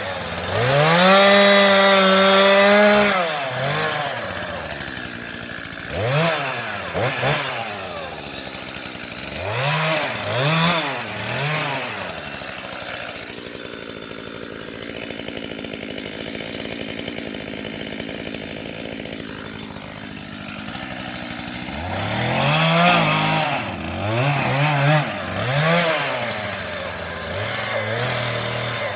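Stihl two-stroke chainsaw revving up and down in repeated bursts. It is held at high revs for a couple of seconds near the start, drops to a lower, steadier running for several seconds in the middle, and revs in short bursts again near the end.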